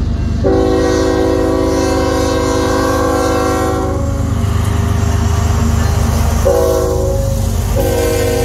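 Canadian National freight train's diesel locomotives sounding their multi-note air horn as they approach and pass close by: a long blast of about three and a half seconds, a short blast a couple of seconds later, then another blast starting near the end. Under the horn, a steady low rumble of the engines and wheels on the rails.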